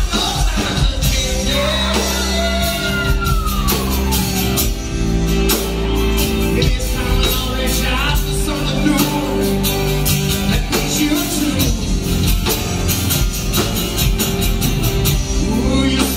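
Live band playing: drums, bass, electric and acoustic guitars, with sung vocals, heard in a large hall.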